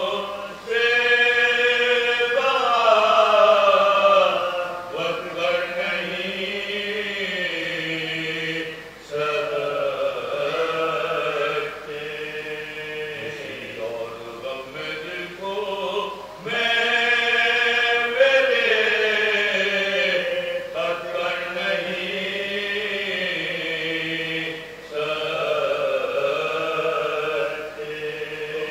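Men's voices reciting an unaccompanied Urdu marsiya, a sung elegy for Karbala, in long melodic phrases of several seconds each, the voices swelling at the start of each phrase.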